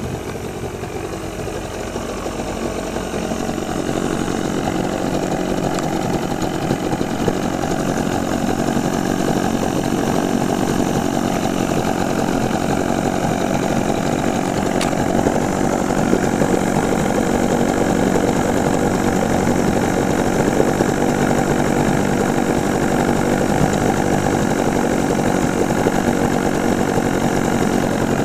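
1962 Evinrude Lark IV 40 hp two-cylinder two-stroke outboard motor running steadily just after a carburettor rebuild, which the owner says still doesn't sound right and needs more adjustment.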